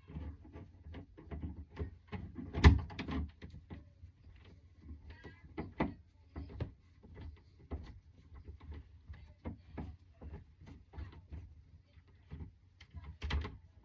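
Irregular small clicks and knocks of screws and a screwdriver being worked into a door handle, with one sharper knock about two and a half seconds in.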